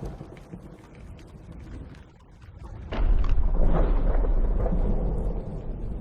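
Cinematic sound-effects mix: a crackling patter, then about three seconds in a sudden heavy impact that carries on as a deep, sustained rumble.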